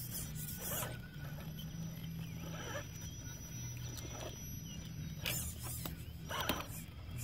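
Axial AX10 Deadbolt RC rock crawler driving slowly: its electric drivetrain gives a low steady whine that steps in pitch with the throttle, with short high squeaks every second or two.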